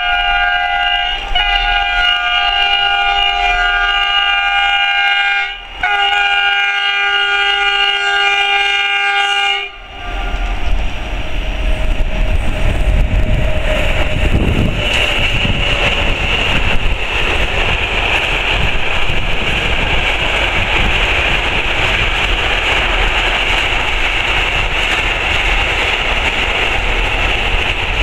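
A Siemens Taurus electric locomotive sounds its chord horn in long blasts, with two brief breaks, and stops about ten seconds in. After that the locomotive and its container wagons run past close by, with a steady rush of wheel and rail noise.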